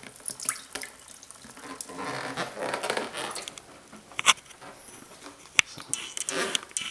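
Dirty water from a carpet cleaner's recovery tank trickling and dripping into a toilet as the last of it is poured out, with two sharp clicks in the second half.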